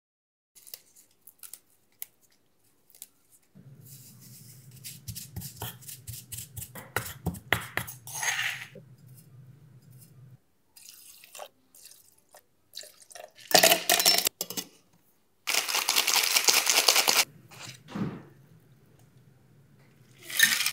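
Cocktail-making sounds: scattered clinks and taps of a spoon and tools against a steel cocktail shaker and a stone mortar, with a few louder clatters. Then come about two seconds of dense rattling as ice is shaken in the shaker. Near the end, liquid pours through a small strainer into an ice-filled glass.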